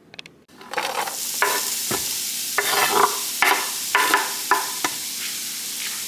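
Food sizzling in a hot pan for chili, stirred and scraped with a utensil in repeated strokes, about one or two a second. The sizzle starts suddenly about half a second in.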